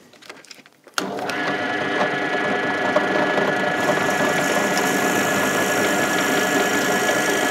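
Bench pillar drill's motor starting suddenly about a second in and then running with a steady hum. From about halfway, a hiss is added as the 6 mm lip-and-spur drill bit bores through a small wooden disc held in a drill vice.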